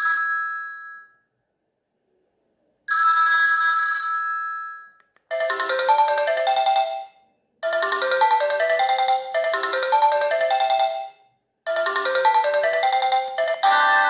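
Sony Ericsson K220i mobile phone playing its built-in polyphonic ringtones. A bright chime tone rings and fades, then repeats after a short pause. About five seconds in, a different ringtone's melody begins, its short phrase repeating with brief gaps.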